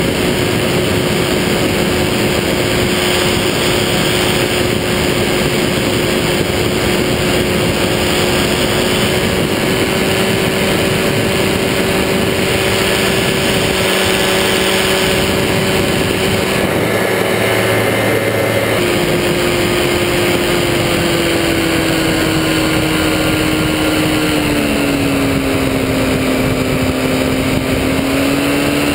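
Powered parachute's engine and propeller droning steadily in flight, with wind rushing over the helmet-mounted camera. The engine note steps down about two-thirds of the way through, then slides lower again a few seconds later.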